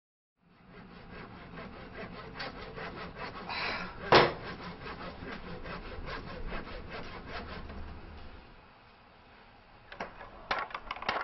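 Wood being sawn by hand in repeated strokes, with one loud knock about four seconds in and a few sharp knocks near the end.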